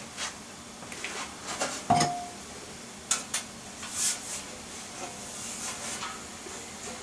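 Scattered light clicks and clinks of small hard objects being handled, one of them ringing briefly about two seconds in.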